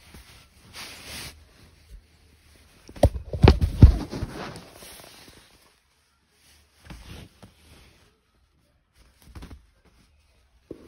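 Fabric rustling and bumping as a kitten squirms on a duvet close to the microphone, with a quick run of knocks and a rustle about three seconds in, then a few short, softer rustles.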